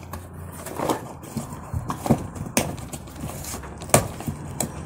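Irregular knocks, taps and scrapes of a small cardboard box being handled and its flaps pulled open. The sharpest knock comes about four seconds in.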